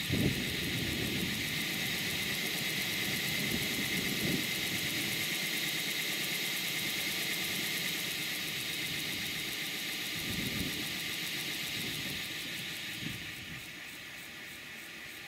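Miniature live-steam locomotive running under its own steam with its wheels turning on a stand: a steady hiss of steam with a few low knocks, easing off near the end.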